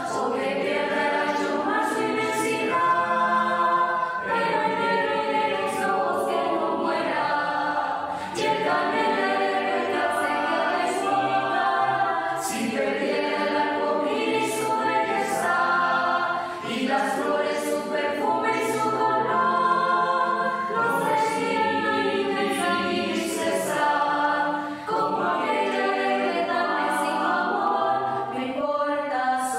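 A mixed choir of men's and women's voices singing a cappella, in long held phrases with short breaks between them.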